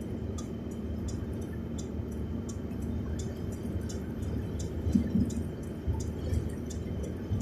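Drops of muddy rain ticking on a car a few times a second over a steady low rumble of wind and the moving car, during a mud storm.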